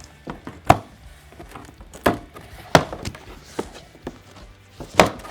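Cardboard carton being opened and handled, giving a handful of short, sharp knocks and thuds over a quiet background.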